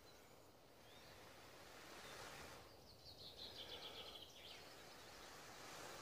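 Two soft, rushing breaths blown into a smouldering dry-grass tinder bundle to coax an ember into flame. Between the two breaths a bird gives a short, rapid high trill.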